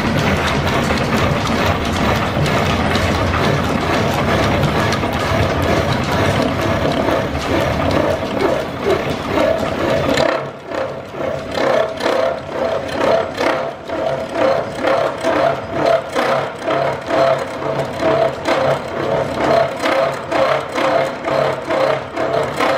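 Horizontal milling machine's arbor cutter milling a metal part held in a vise, a dense, harsh cutting noise. About ten seconds in it drops to a lighter, rhythmic churning with a steady hum, pulsing about one and a half times a second.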